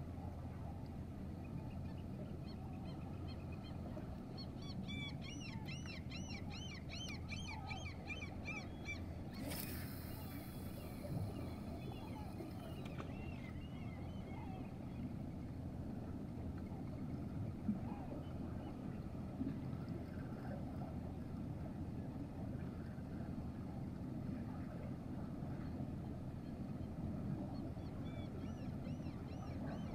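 Birds calling in a rapid run of high, repeated calls for about four seconds, over a steady low hum across the harbour. A brief rushing hiss follows just after, lasting about three seconds, and faint calls come again near the end.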